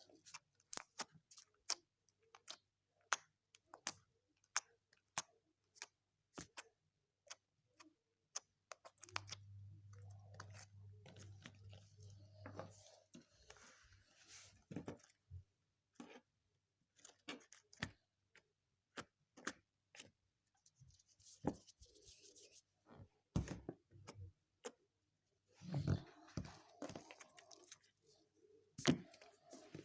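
Soft homemade slime, freshly softened in a microwave, being squeezed and worked by hand: a steady run of small sticky clicks and pops as trapped air breaks out. A low hum comes in for a few seconds about nine seconds in.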